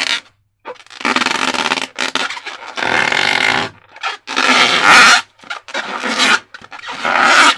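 Slime being squeezed and worked by hand, sticky crackling squelches in about five strokes of roughly a second each.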